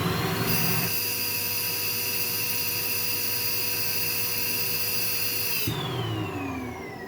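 Vacuum cleaner (hoover) motor running with a steady high whine that settles about half a second in, then switched off near six seconds, its pitch falling as the motor winds down.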